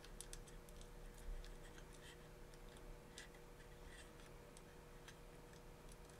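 Faint, irregular small clicks and ticks of little metal hardware being handled: M3 spring washers and nuts being fitted onto the motor's mounting screws. A faint steady hum runs underneath.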